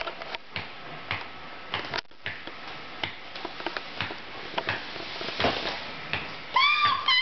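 A series of sharp clicks, about two or three a second. A baby gives a short high squeal about six and a half seconds in.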